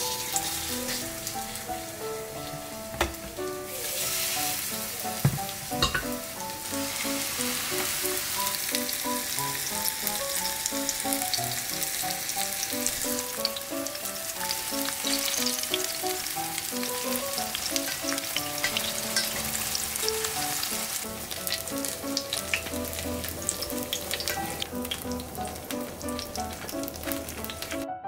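Deodeok root skewers coated in glutinous rice flour pan-frying in plenty of oil in a stainless steel pan: steady sizzling and crackling, heavier from about four seconds in, with a few sharp knocks around three and five seconds as pieces are placed or turned. The frying cuts off suddenly at the very end, and background music plays throughout.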